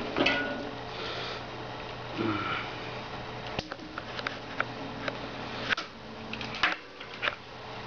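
Scattered light clicks and knocks of small metal parts, headset spacers being handled and fitted onto a bicycle fork's steerer tube, over a steady low hum.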